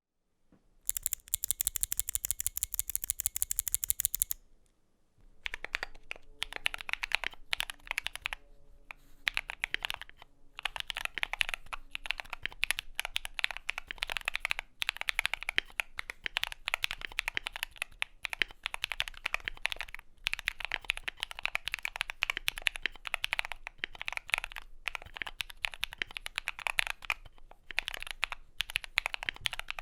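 Typing on a Skyloong GK68XS aluminium-case keyboard with lubed Akko CS Blue clicky switches and PBT keycaps, each keystroke a sharp click. It opens with a fast, bright run of clicks for about three seconds, then a short break, then steady typing with a few brief pauses.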